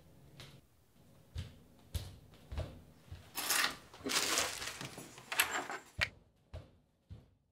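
A few sharp knocks, then a clear plastic bag of treats rustling and crinkling in three bursts as a hand handles it. The sound cuts off suddenly about six seconds in, leaving only a few faint knocks.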